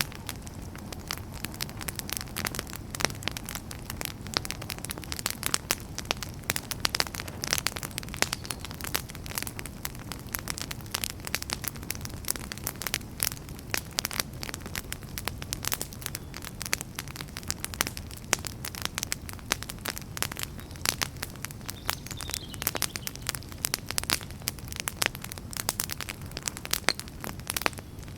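Wood campfire crackling steadily, with dense, irregular sharp snaps and pops over a steady low rumble.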